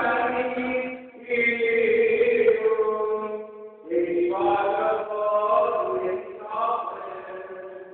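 Greek Orthodox Gospel reading chanted in Greek in the Byzantine manner: sustained, pitched phrases with short breaks about one second and about four seconds in.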